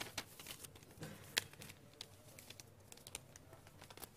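Sheets of paper being folded and handled close to a microphone: faint rustles and small clicks, the sharpest about a second and a half in.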